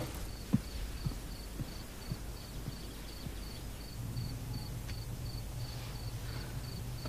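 Cricket chirping steadily in a night background, a short high chirp about three times a second. Soft low thuds about twice a second in the first few seconds, and a low hum comes in about halfway.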